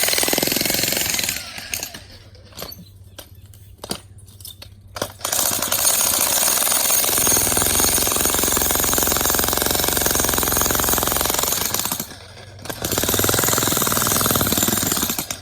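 Jackhammer breaking up rock, run in stretches. It cuts out about a second and a half in and gives a few short bursts. It runs steadily again from about five seconds in, with a brief stop after about twelve seconds.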